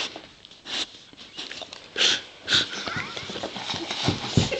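Excited pit bull dog up close, making a few short, sharp breathy sounds, with bumping and rustling of her moving about near the end.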